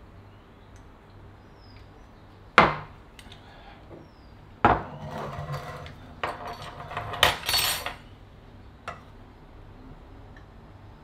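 A tin can set down hard on a countertop with one sharp knock, then opened with a hand-held lever can opener: a loud strike as the blade punches into the lid, followed by about three seconds of irregular metal crunching and scraping as it cuts around the lid, and a last small click.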